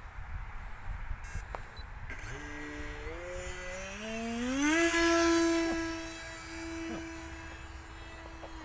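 Radio-controlled model plane's motor and propeller whining as the throttle is opened in steps, the pitch climbing, then holding steady at full throttle. The plane is launched and flies off, and the sound fades.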